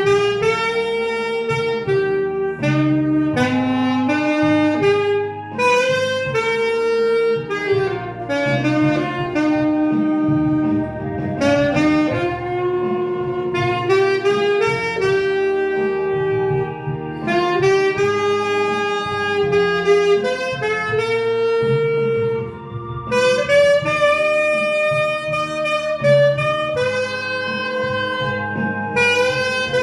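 Saxophone playing a slow, held-note melody over a backing accompaniment.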